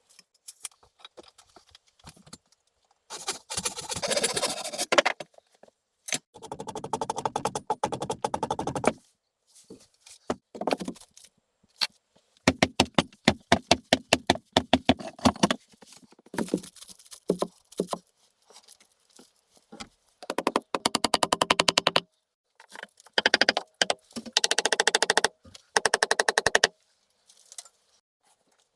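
Repeated bursts of fast rasping scrapes, each lasting one to three seconds, with short pauses between.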